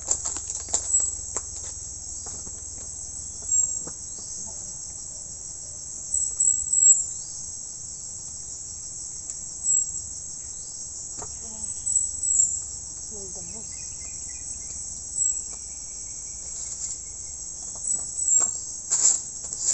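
A steady, high-pitched chorus of insects, with louder chirps every few seconds and a few faint clicks.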